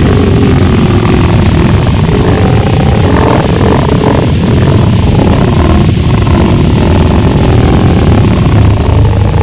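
Gorenoise: a loud, unbroken wall of heavily distorted harsh noise over a deep, low rumble.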